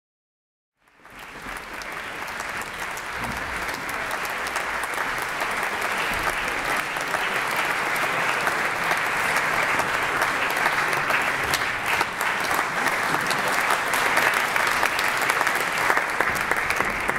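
Audience applauding: dense, steady clapping that starts about a second in and grows a little louder.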